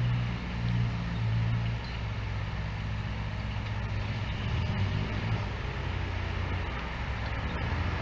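Diesel engine running with a low, steady drone.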